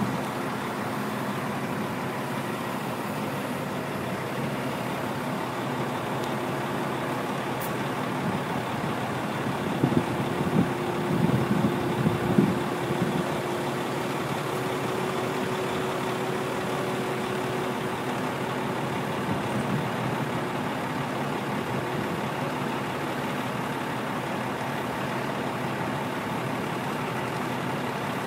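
Mobile crane's diesel engine running steadily while it lifts a concrete septic tank, growing louder and more uneven for about three seconds around ten seconds in.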